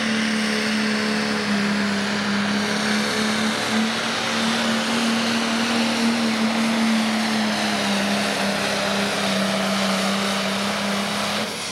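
Pro Stock pulling tractor's turbocharged diesel engine running flat out under load while dragging the weight-transfer sled, one steady loud note that sags a little in the second half. Right at the end the engine backs off and its pitch starts to fall as the pull ends.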